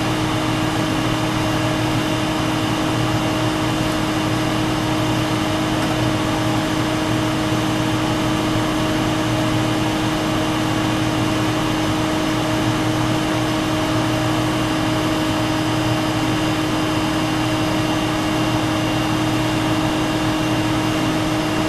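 Steady machine hum with a constant low tone and an even hiss, unchanging throughout.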